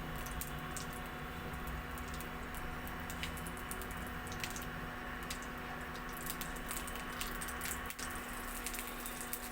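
Slit green chillies and nigella seeds frying in hot oil in a kadai: a steady sizzle with scattered small crackles and pops, over a faint steady hum.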